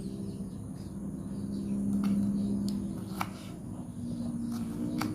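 Background music of long held notes that shift in pitch near the end, with a few sharp taps from kitchen work, about five in all.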